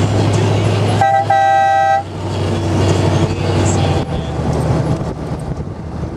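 A motor trike's engine runs steadily while a vehicle horn gives one clear toot of about a second, about a second in. The engine drone falls away after the toot.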